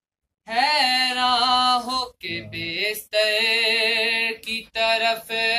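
A man's voice singing an Urdu qasida in praise of Imam Ali, without instruments, drawing long held notes with a wavering ornament. There are short breaks between the phrases.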